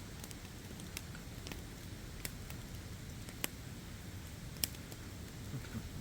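Wood campfire crackling, with a low steady hiss and a few sharp pops scattered a second or so apart.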